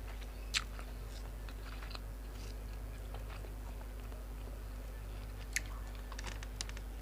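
A person chewing and biting a mouthful of grilled pork salad (nam tok moo) with sticky rice. There are soft mouth clicks, a sharp one about half a second in and a small cluster near the end, over a steady low hum.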